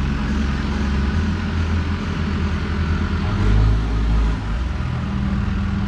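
Caterpillar backhoe loader's diesel engine running as the machine drives across dirt, a steady low hum that swells louder for under a second a little past halfway.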